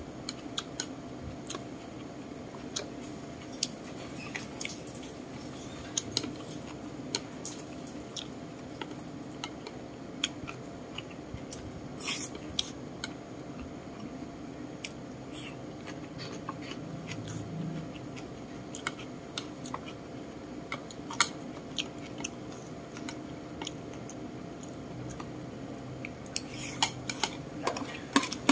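Close-up chewing, with scattered clicks of a metal spoon and chopsticks against a ceramic plate over a steady low hum. Near the end the clicks come thicker as the spoon scrapes up food from the plate.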